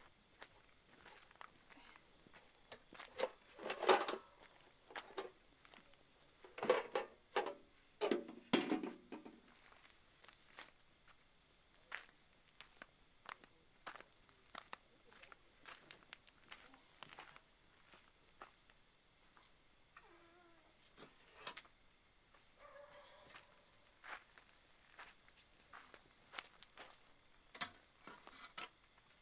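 Insects chirping in a steady, high, rapidly pulsing trill. A few louder knocks or rustles come about four seconds in and again between about seven and nine seconds.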